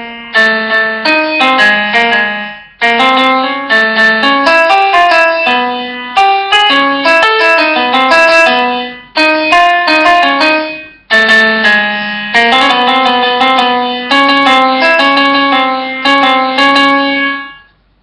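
Solo piano background music: a simple melody in short phrases, with brief breaks between phrases, ending just before the close.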